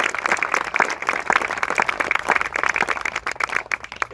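Crowd applauding with dense clapping that thins to a few scattered claps and dies away near the end.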